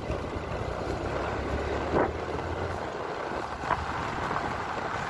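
Motorcycle engine running as the bike rides along a dirt track, with wind rushing over the microphone and a couple of brief louder swells about two seconds in and near four seconds.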